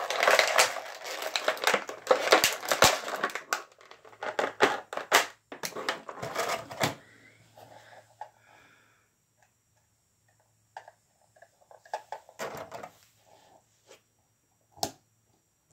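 Stiff clear plastic packaging crinkling and crackling as it is pulled apart, dense for the first several seconds, then sparse handling clicks and rustles, with a single sharp knock near the end.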